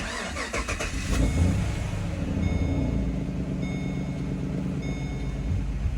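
The 2013 Chevrolet Caprice PPV's V8 starting and settling into a steady idle on its newly replaced fuel pump. A short dashboard warning chime repeats about once every 1.2 seconds over the idle.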